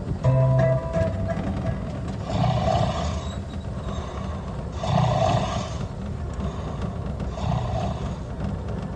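Three rough, noisy animal-like calls, each just under a second long and about two and a half seconds apart, over a steady low rumble.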